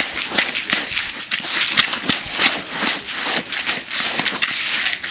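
Hands stirring and squeezing crumbly fishing groundbait in a plastic basin, working in a little liquid halibut flavouring: a continuous gritty rustle of many small crackles.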